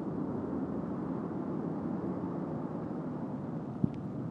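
Outdoor ambient noise, a low steady muffled rumble with faint traffic in it, picked up by a microphone inside the closed ear cup of Harman Kardon FLY ANC headphones with noise cancelling off, so only passive isolation dulls it. A single short thump near the end.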